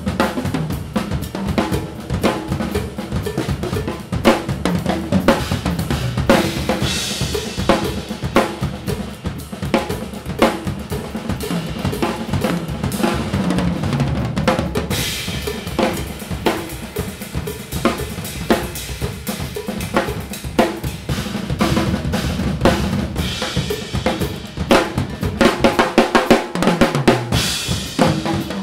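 Two drum kits played together in an improvised duet: busy, fast strokes on snare, toms and bass drum, with cymbal washes swelling up several times.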